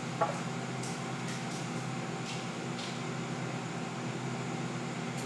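Steady mechanical room hum, like air conditioning, holding a few constant tones, with a few faint light ticks in the first few seconds.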